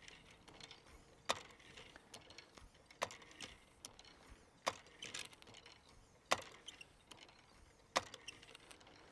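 Simple Pump deep well hand pump being worked by its lever handle, with a sharp metal clack at each stroke, about every second and a half, and lighter rattling in between. It is the priming run, lifting water from a static level of about 40 feet before the water reaches the spout.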